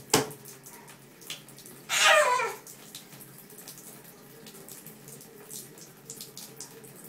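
Toddler slapping the bath water with his hands, a splash right at the start, then a loud squeal falling in pitch about two seconds in, followed by quieter splashing in the tub.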